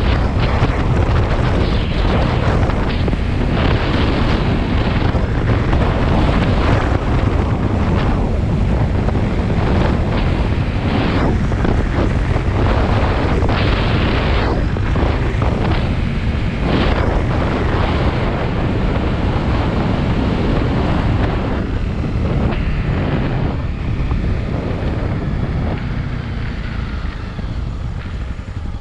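Heavy wind rushing and buffeting on the microphone of a Honda CRF250 Rally motorcycle riding at road speed, with the bike's running noise underneath. The rush eases over the last few seconds as the bike slows.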